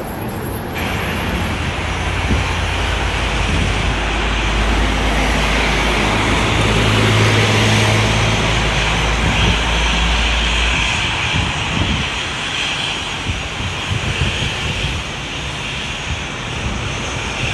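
Aircraft engines passing, a loud, steady rushing noise with a low rumble that builds to a peak about halfway through and then eases off.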